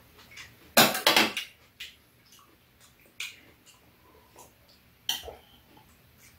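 Metal chopsticks and spoons clicking and clinking against bowls and a metal tray during a meal, with a louder burst of noise about a second in and single sharper clinks later on.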